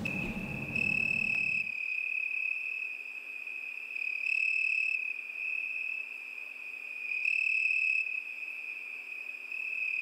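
Steady high-pitched cricket chirring that swells about every three seconds, used as the stock 'crickets' sound effect for an awkward silence.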